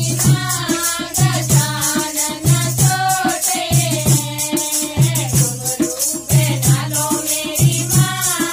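Group of women singing a devotional Ganesh bhajan (kirtan) together, with steady low drum beats and jingling, rattling hand percussion keeping the rhythm.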